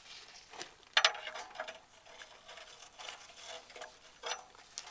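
Wrench clinking and scraping on the oil-pan drain plug as it is worked loose, with a sharp metallic knock about a second in and a few lighter ticks later.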